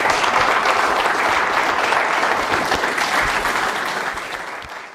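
Audience applauding at the close of a talk, fading out near the end.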